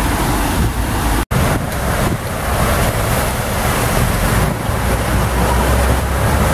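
Cars driving through floodwater on a flooded street: tyres splashing and runoff water rushing, with wind on the microphone. The sound cuts out for an instant about a second in.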